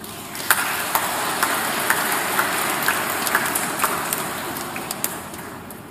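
Congregation applauding: many hands clapping together. It swells up just after the start, holds steady, and fades out toward the end.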